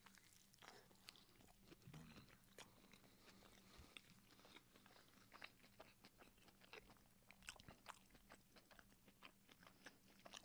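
Faint close-miked chewing of a mouthful of breakfast burrito: a string of small, irregular wet mouth clicks and soft crunches.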